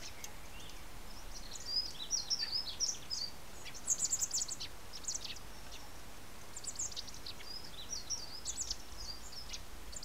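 Short, high chirping calls in several quick bursts: the begging calls of a fledgling Eurasian blackbird waiting to be fed by an adult male.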